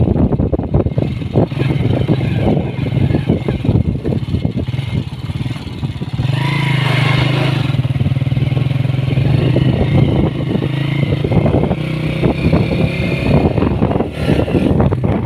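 Motorcycle engine running on the move, with many short knocks and rattles throughout. The engine grows louder for a few seconds around the middle.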